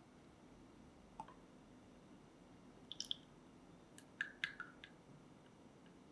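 A spatula stirring in a plastic measuring cup of liquid, knocking against its sides: a few light, sharp clicks, most of them about four to five seconds in. Melted gelatin is being mixed into sugared lemon water for a strawberry jelly.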